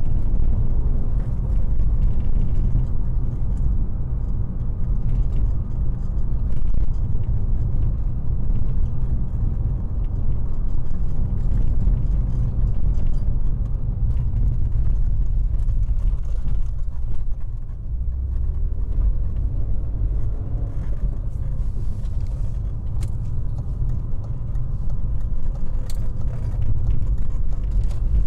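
BMW E36 M3's 3.0-litre straight-six and road noise while the car is driven, a steady low rumble that eases briefly a little past the middle.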